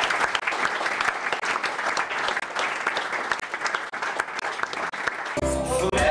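Audience applauding, dense clapping. About five seconds in, music with a heavy bass comes in.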